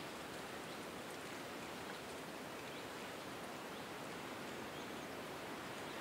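Wind blowing steadily through forest trees, a continuous rustling hiss of leaves and branches with no gusts or lulls.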